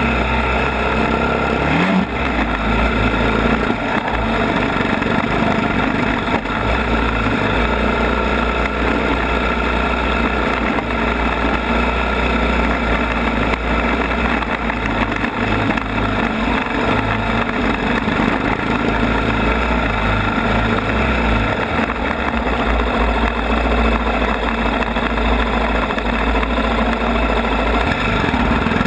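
ATV engine running steadily and loudly under way, with a dense rush of noise over it and a brief rise in engine pitch about two seconds in.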